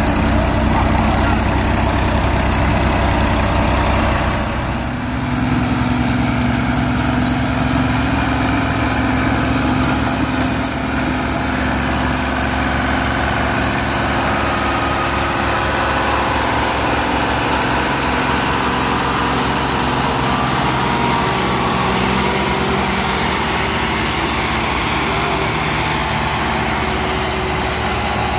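Farm tractor diesel engines, a Massey Ferguson 385 among them, running steadily under load while hauling a loaded sugarcane trolley. The engine note shifts about five seconds in and then holds steady.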